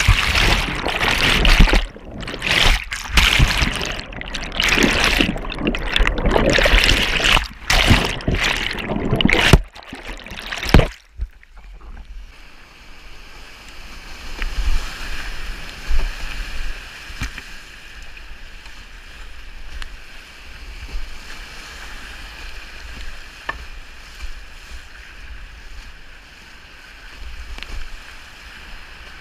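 Whitewater rushing and splashing around a kayak: loud and choppy, with repeated sudden drop-outs, for the first ten seconds or so, then a quieter, steady rush of river water.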